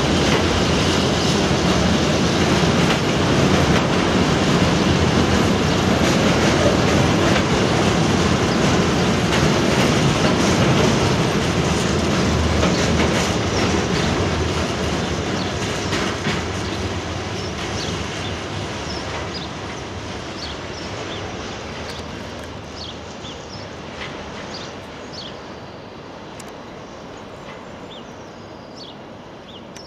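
Container wagons of a freight train rolling past, the wheels running over the rails. The noise holds steady, then fades from about halfway through as the end of the train draws away.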